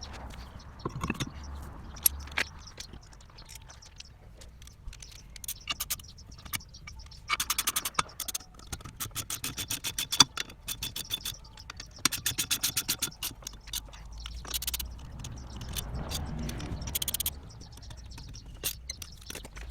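Metal hand tools working on a car's front brake caliper during a pad change: quick runs of even clicking, scraping, and scattered sharp knocks, the loudest about ten seconds in.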